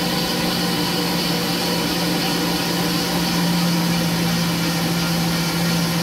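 Ford modular V8 idling steadily just after its first start on a freshly primed oil system, with a steady low hum, heard from inside the car.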